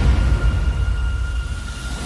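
Low rumbling drone from a TV fight scene's sound-effects track, with a faint steady high tone over it, easing off slightly toward the end.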